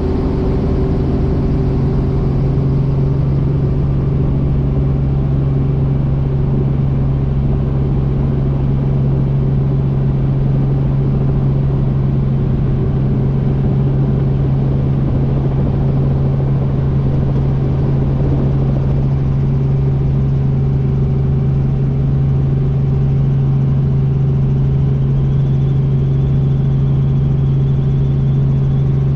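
Helicopter running, a loud, steady drone with a strong low hum. A faint high whine joins near the end.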